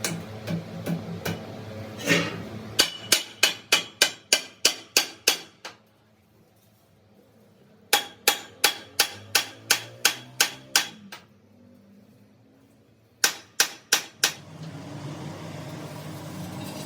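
Hammer striking a steel truck wheel rim in three runs of quick, evenly paced blows, about three a second, each with a short metallic ring.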